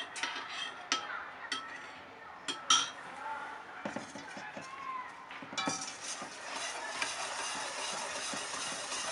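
A wire balloon whisk knocks and clinks against a stainless steel mixing bowl a few times. From about halfway through, brisk, steady whisking follows, the wires scraping round the steel bowl as the custard base of egg and sifted dry ingredients is mixed.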